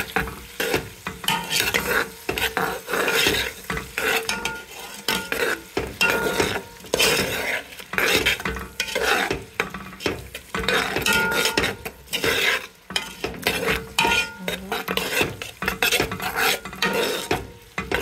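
A metal spoon stirring and scraping vegetables around a nonstick pot in repeated strokes, with a light clink of metal on the pot now and then. Under it the vegetables sizzle in hot oil as they stir-fry.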